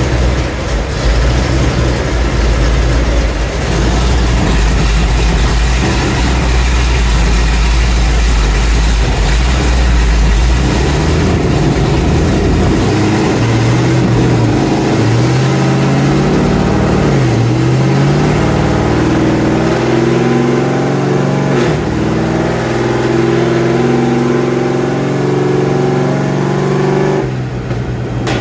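Race car engine running on a chassis dyno: a heavy low rumble at first, then the revs climb steadily for about fifteen seconds with a few brief dips, and the engine comes off sharply near the end.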